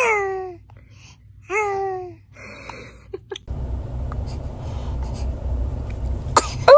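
A baby sneezing twice, about a second and a half apart: each a sudden burst trailing off into a short falling voiced note. A low rumble comes in about halfway through.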